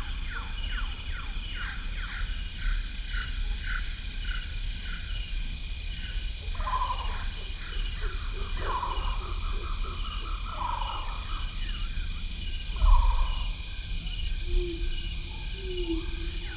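Animal-like calls over a steady high whine: a run of quick falling chirps, about two a second, then a few lower calls spaced about two seconds apart, and a low held tone near the end.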